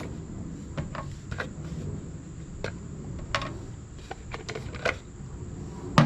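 Scattered light clicks and taps of small metal valve-train parts from a generator engine being handled during reassembly, with one louder knock near the end.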